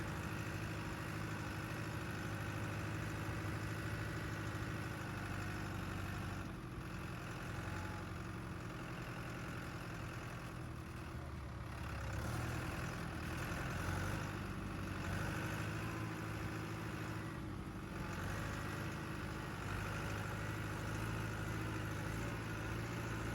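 Vehicle engine running steadily, an even low hum.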